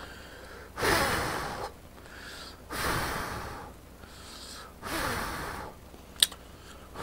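A person slurping instant ramen noodles, three long sucking slurps about two seconds apart.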